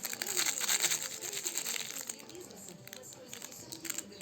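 Crinkle toy rustling and crackling as a chihuahua puppy chews and shakes it, busiest in the first two seconds and then quieter.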